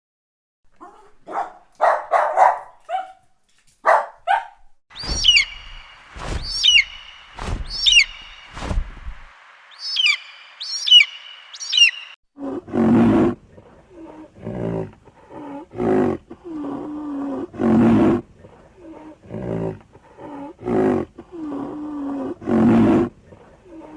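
A series of animal calls: a few short calls at first, then high calls sweeping down in pitch over a steady hum with some low thuds, then from about halfway a run of deep, repeated calls, the loudest about every two seconds.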